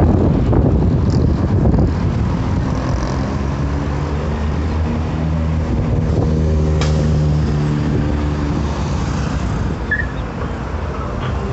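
Diesel engine and exhaust of a Mercedes-Benz OF-1721 Euro 5 bus running: rough and louder at first, then settling into an even low drone.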